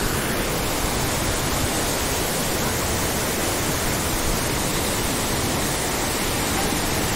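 Fast mountain stream rushing over boulders, white water giving a steady, even rush.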